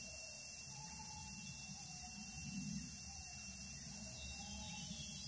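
Faint wild animal calls: long wavering notes, several in a row, which the forager takes for gibbons and monkeys, with foxes also about.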